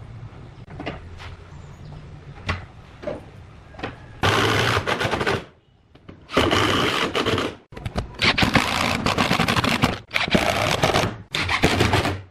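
A few light taps, then a power tool working wood in loud, harsh bursts that stop and start about five times.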